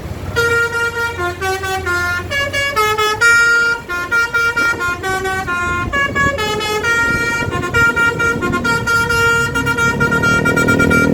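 Bus 'basuri' telolet horn, a multi-trumpet musical horn, playing a fast tune of short stepped notes. A lower rumbling sound comes in near the end.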